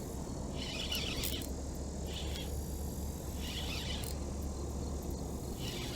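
Insects calling in short raspy bursts, repeating about every second and a half over a low steady outdoor rumble.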